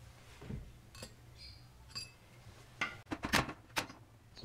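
Steel tools clinking on a workbench: a few light clicks, then a quick run of sharp metallic knocks about three seconds in, some ringing briefly.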